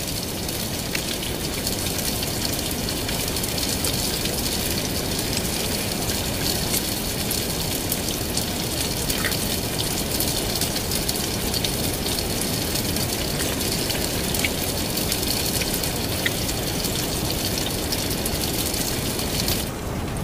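Heavy rain falling steadily on a tent, an even rushing hiss. A faint steady high tone runs under it and stops near the end.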